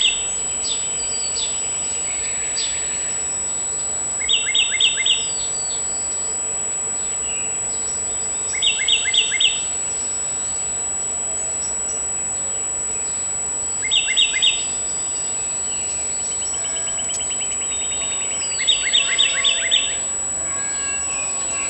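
A songbird repeating a short phrase of four or five quick, evenly spaced notes about every four to five seconds, over a steady background hiss.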